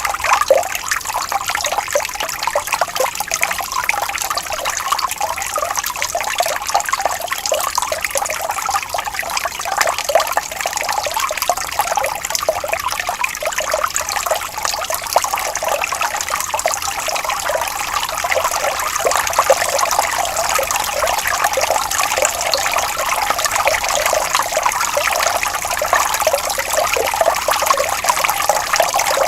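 Water trickling and bubbling steadily over stones in a small stream, a dense, even patter of many small splashes.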